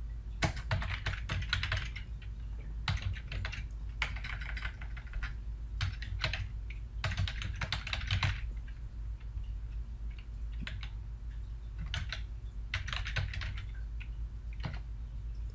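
Computer keyboard typing: quick runs of key clicks in several bursts with short pauses between them, over a low steady hum.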